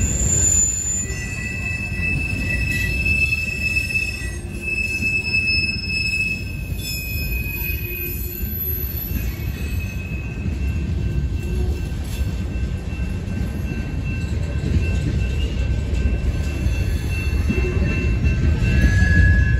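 Covered hopper cars of a Union Pacific grain train rolling past with a steady low rumble, the wheels squealing in thin high tones that come and go as the cars take the curve.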